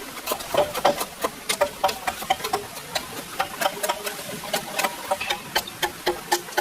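Quick, irregular knocks and clicks, a few a second, many with a brief ring after the hit.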